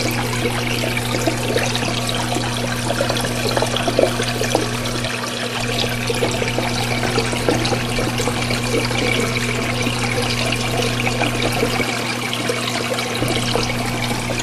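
Quiet One 9000 aquarium return pump running, a steady low hum under constant splashing and gurgling of water from the return outlets and overflow; the pump is new and, by its owner's account, really too noisy.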